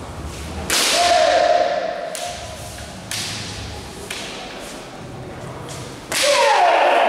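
Kendo sparring: sharp cracks of bamboo shinai strikes with foot stamps, each followed by a drawn-out kiai shout, once about a second in and again near the end. Smaller knocks fall between, in a reverberant hall.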